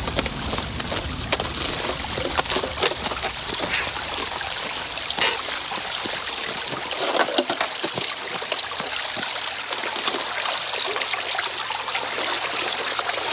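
Shallow creek water trickling over rocks, with scattered knocks and light splashes throughout.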